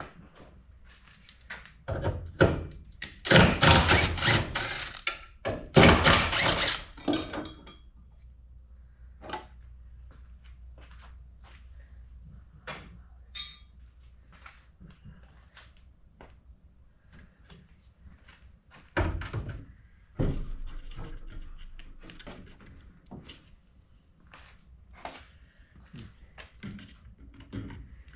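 Hands-on car work with tools and parts: a run of knocks and thunks, with two louder, noisy stretches of a second or two about two and six seconds in, over a faint steady low hum.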